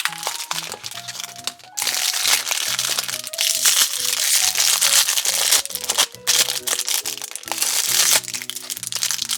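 Plastic wrapping on an L.O.L. Surprise toy ball crinkling and crackling as it is torn open by hand, starting about two seconds in and going on most of the time, over background music.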